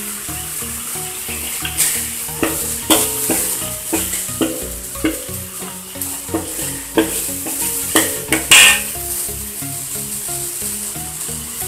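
Ground spice paste sizzling in oil in a wok while a metal spatula stirs and scrapes it. The spatula clinks sharply against the wok a number of times through the middle, the loudest clink near the end.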